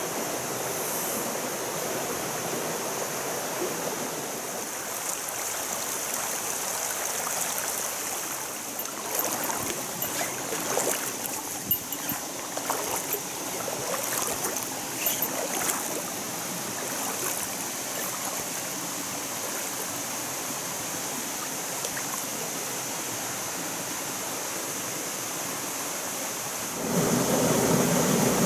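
Shallow mountain stream running over stones, a steady wash of water. Irregular splashes and knocks come in the middle, and near the end the water sound becomes suddenly louder and closer.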